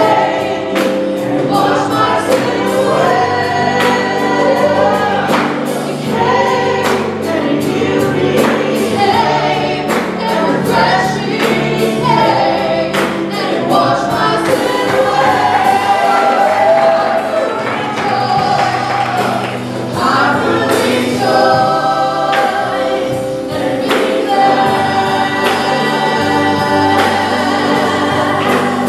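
Live gospel worship song: two women singing lead into microphones, backed by keyboard and electric guitar with a steady beat.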